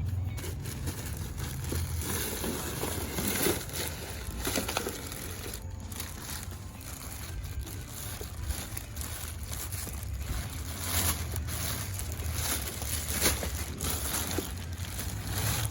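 Plastic bags rustling and crinkling as they are rummaged through by hand, with irregular crackles, over a steady low rumble.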